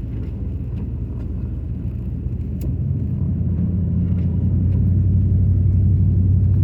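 Car engine and road noise heard from inside the cabin while driving on snowy streets: a low, steady drone that grows louder about halfway through as the engine works harder.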